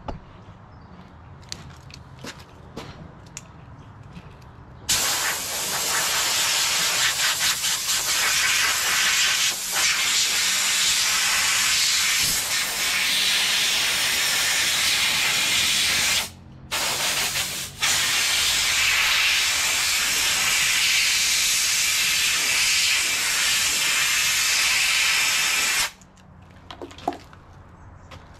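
Compressed-air blow gun hissing as it blows dust out of an excavator's metal-mesh inner air filter element. A steady loud blast starts about five seconds in, breaks off twice briefly about halfway, and stops a couple of seconds before the end, with light handling clicks before it.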